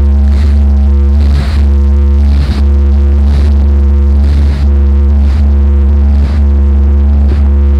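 Boat engine droning steadily under way, with a heavy low rumble and a steady hum, and a soft rushing pulse about once a second.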